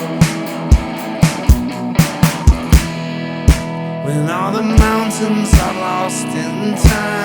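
Rock band playing an instrumental passage: guitar chords over an electronic drum kit with regular kick and snare hits, and no bass guitar. About four to five seconds in, sliding notes run up and down over the chords.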